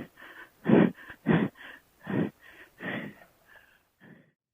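A man breathing hard and out of breath from exertion: loud gasping breaths come about one every three-quarters of a second, then grow softer and die away near the end.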